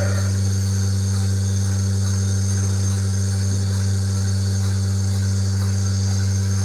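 Milking machine's vacuum pump motor running with a steady low hum.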